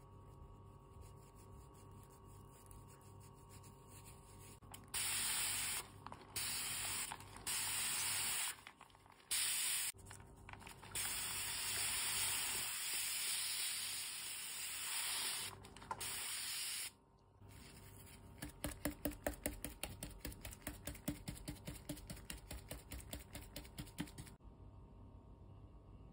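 Aerosol spray can sprayed in several short bursts, then one long spray lasting about five seconds. After that comes a run of quick rhythmic clicks, about four a second.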